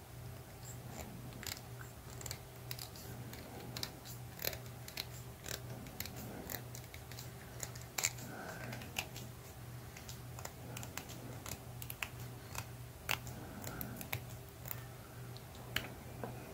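Faint irregular clicks and scrapes of 16-gauge wire being wound by hand around a red plastic wire-twisting template, over a steady low hum.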